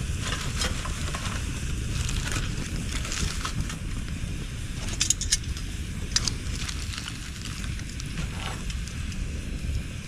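Bonfire of cut bamboo crackling, with sharp pops, the loudest about five and six seconds in, over a steady low rumble.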